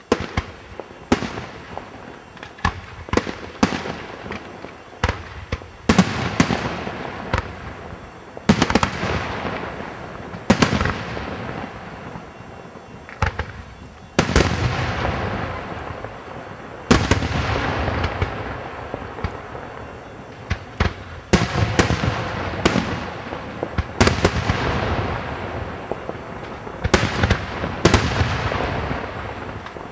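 Aerial firework shells bursting in a rapid, irregular volley of sharp bangs. The bigger bursts are each followed by a tail of sound that fades over a second or two.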